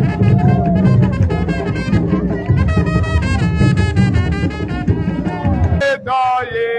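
Brass instruments and drums playing band music together, which cuts off suddenly about six seconds in and gives way to a man's voice.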